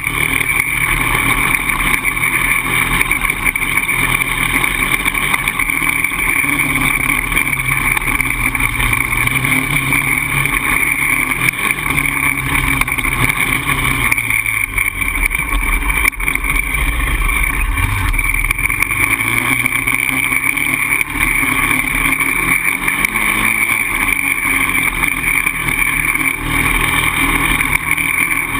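Polaris Outlaw 525 quad's single-cylinder four-stroke engine running under way, its revs rising and falling, dropping low about halfway through before picking up again.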